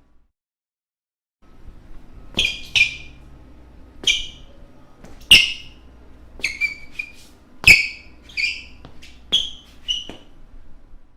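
Basketball shoes squeaking on a court floor: about a dozen short, sharp, high squeaks at irregular intervals, some in quick pairs, over a faint background hiss. The first second and a half is dead silent.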